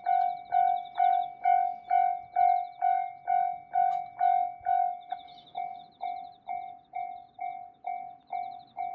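Japanese railway level crossing warning alarm sounding its repeated 'kan-kan' ring, about two strikes a second. About five seconds in it becomes quieter and its ring changes a little.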